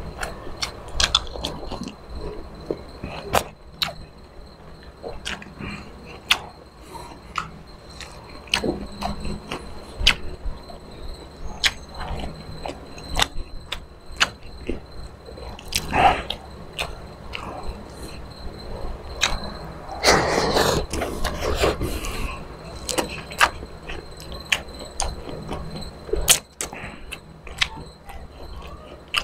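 Close-miked eating sounds: a man chewing squid adobo with wet mouth smacks and irregular sharp clicks, and fingers picking through the saucy food on a wooden plate. A denser, noisier stretch of chewing comes about two-thirds of the way in.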